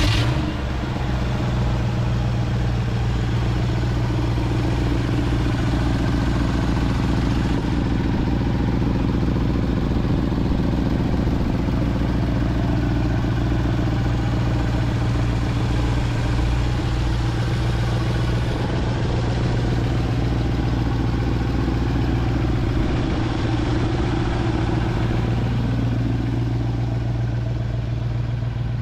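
1966 Ford F100's V8 idling steadily, an even running note that barely changes.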